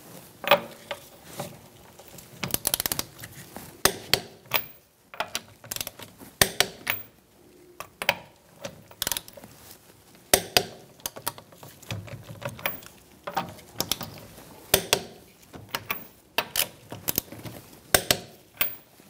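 Ratcheting torque wrench on a wheel's lug nuts as they are tightened to 85 ft-lb: short bursts of sharp metallic ratchet clicks, about one burst a second, repeating as the handle is worked.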